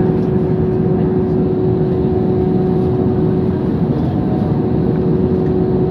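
Airbus A320 jet engines heard inside the cabin as the airliner moves along the runway: a steady engine hum with one constant tone over a low rumble, holding the same pitch throughout.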